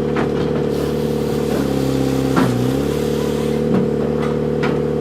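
Firewood processor's turbocharged John Deere diesel engine running steadily. Its pitch dips briefly about halfway through, as if under load, then recovers. A few sharp knocks come from the machine working the wood.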